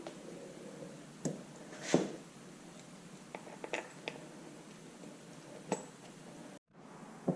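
Scattered faint metal clinks and taps as bolts and parts of the rear crankshaft seal retainer are handled and fitted, with a cluster of quick clicks in the middle and the sound cutting out briefly near the end.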